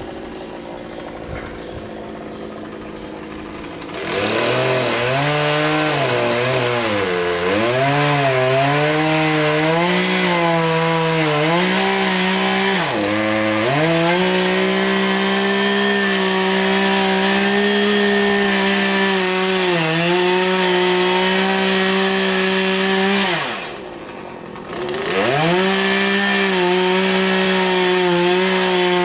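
Two-stroke chainsaw idling at first, then revving up about four seconds in, its pitch rising and falling several times before it is held at a steady high speed. Near the end the throttle eases off for about a second, then it revs up again.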